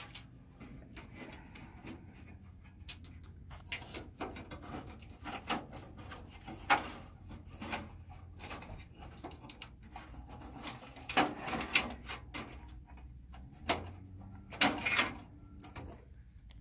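Handling noise as a cable is routed by hand inside a laser machine's sheet-metal case: irregular rustling, scraping and light knocks of wire and hand against metal and plastic, with a sharper knock about seven seconds in.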